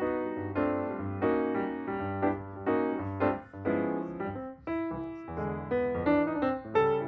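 Background piano music: a slow melody of struck notes over held low notes.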